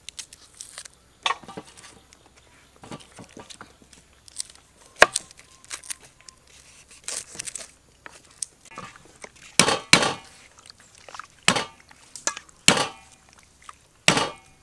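A cleaver knocking on a wooden chopping board as shallots are cut, with the soft crackle of papery garlic and shallot skins being peeled. A few louder, sharper chops come in the second half.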